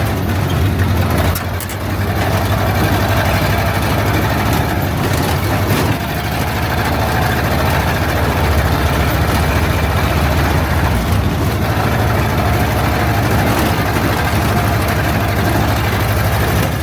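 1929 Ford Model A's four-cylinder flathead engine running steadily while the car is driven, with a brief dip in loudness about a second and a half in.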